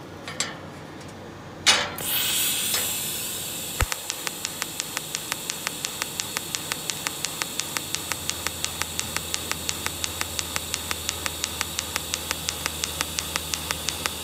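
Chin Shui TIG-200P TIG welding arc: it strikes with a sharp crack, runs as a hiss, then about four seconds in settles into a regular pulsing at about four to five pulses a second, the welder's low-pulse mode.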